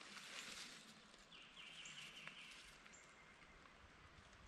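Near silence: faint woodland ambience, with a short faint bird trill about one and a half seconds in.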